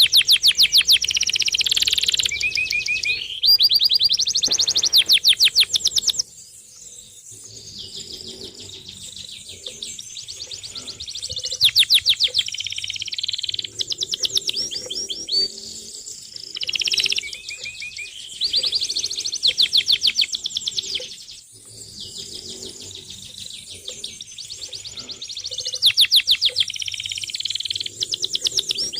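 Birds chirping: loud bursts of rapid, trilled high chirps recur every few seconds, with quieter chirping in between.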